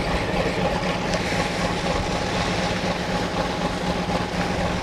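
Boat engine running steadily: a constant low hum under an even rushing noise, with no change throughout.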